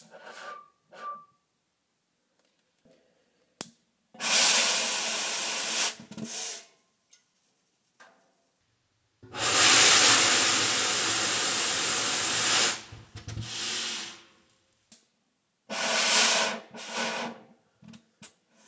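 Fuel vapour igniting and burning inside a lidded glass jar with a loud whoosh, three times, each lasting one to two seconds; the middle one is replayed at half speed, deeper and longer.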